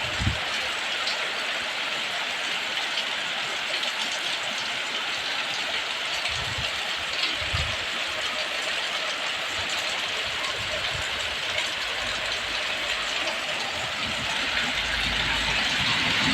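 Heavy rain pouring steadily in strong wind, with a few brief low thumps and growing slightly louder near the end.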